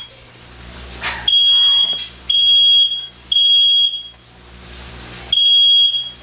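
Smoke alarm sounding: loud, high, steady beeps in sets of three, each under a second long, with a longer pause between sets. A brief clatter about a second in.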